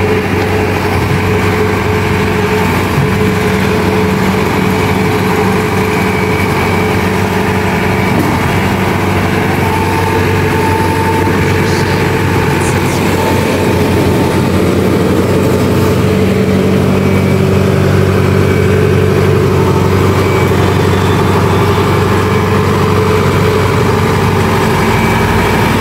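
Kubota DC-93G combine harvester's 93-horsepower turbo diesel engine running at a steady speed, a loud, even, low hum.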